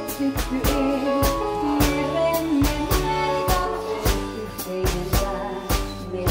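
Live band playing a tango: a woman singing with accordion, electric bass guitar and drum kit, the drums keeping a steady beat of about three strokes a second.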